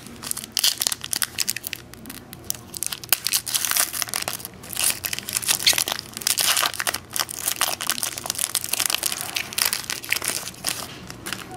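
Foil football-card pack wrapper crinkling and tearing as it is opened by hand, then crumpled: a continuous run of irregular, sharp crackles.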